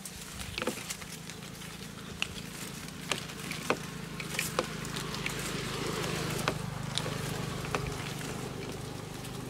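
Hands squishing and mixing grasshoppers in a wet batter in a plastic plate: sticky squelching with scattered small clicks, busiest about halfway through. A steady low hum runs underneath.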